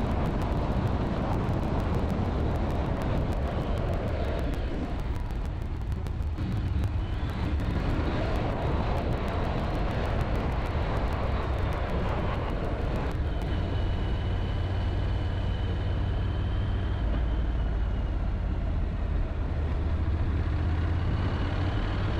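Honda NC750 parallel-twin motorcycle running at road speed, its engine heard under steady wind noise rushing over the camera microphone.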